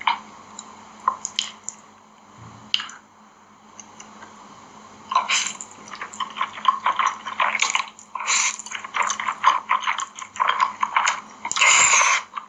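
Close-miked eating of spicy cheese instant noodles: wet mouth sounds of chewing and slurping. First a few separate smacks, then from about five seconds in a dense, continuous run of wet chewing and slurping.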